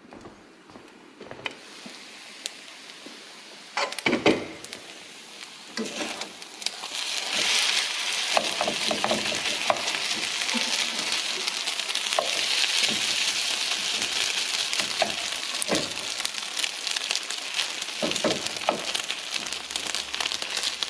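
Food frying in a pan: a quiet stretch with a few knocks, then about seven seconds in a steady sizzle sets in and carries on, with scattered clicks and utensil knocks.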